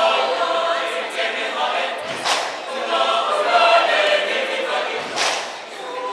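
Mixed choir of young men's and women's voices singing a cappella in several-part harmony, with two short hissing sounds about two and five seconds in.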